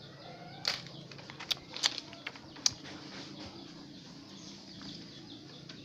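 A few light taps and clicks in the first three seconds, over a steady low hum.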